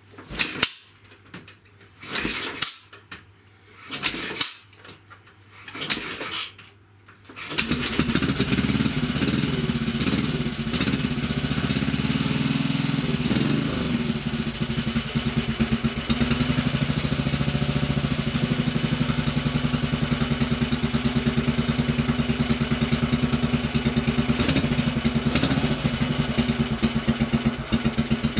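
Horex Regina single-cylinder four-stroke motorcycle being kick-started: about four kicks, each a loud clattering stroke, then the engine catches and runs after about seven seconds. It picks up with some wavering of the revs at first, then settles into a steady, evenly pulsing idle.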